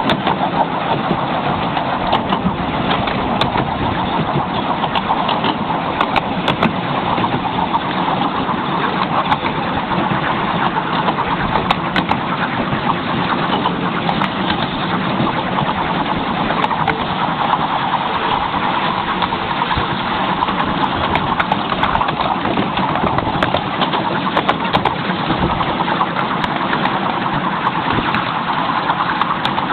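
Miniature railway train running along the track, heard from the carriage: a steady, loud running noise from the wheels and the train, broken by frequent short clicks.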